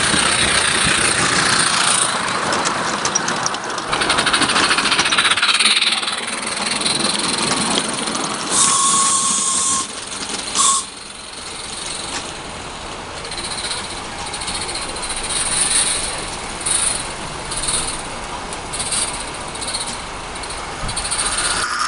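Small 16mm-scale live-steam garden railway locomotive running, with a steady hiss of steam. A short high tone sounds about eight and a half seconds in and again briefly just before eleven seconds.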